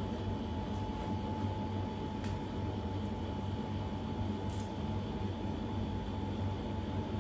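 Steady low mechanical hum with a thin, steady high tone above it, like a fan or air conditioner running in a small room, and a couple of faint light clicks.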